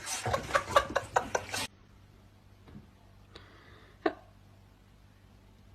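A person laughing in short bursts that cuts off abruptly about a second and a half in, then near quiet with two faint short clicks.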